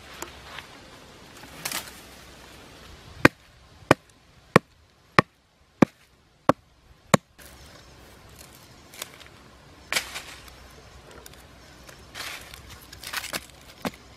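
Seven sharp chopping strikes on a wooden stick, evenly spaced about two-thirds of a second apart. Softer rustling of dry leaves and twigs comes before and after.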